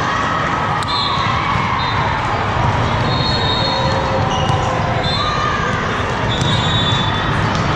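Busy din of a large sports hall full of volleyball courts: many voices at once, with balls being hit and bouncing on the courts. Short high-pitched squeaks come several times.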